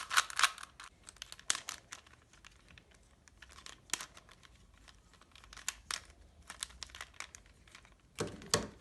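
A 3x3 puzzle cube being turned by hand: quick runs of plastic clicks as the layers turn and snap into place. The clicks come in a dense flurry at first and again near the end, with scattered single turns in between.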